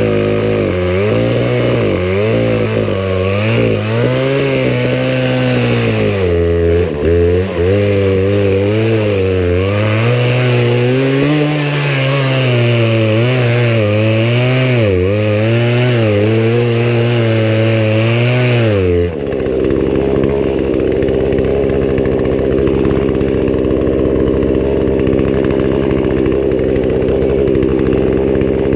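Poulan Pro two-stroke chainsaw working through a cut, its engine pitch repeatedly dipping and recovering under load. About two-thirds of the way through it drops to a steady idle.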